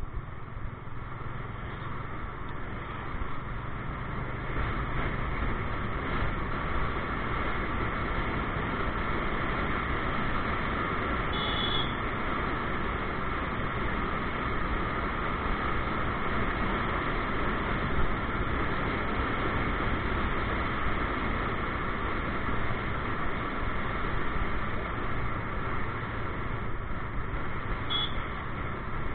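Motorcycle cruising steadily: continuous engine drone under rushing wind and road noise on a bike-mounted camera's microphone. Two brief high beeps come through, one about halfway and one near the end.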